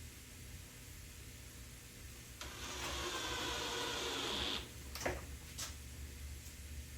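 A power drill runs steadily for about two seconds, driving a screw into a cabinet box, followed by two sharp clicks.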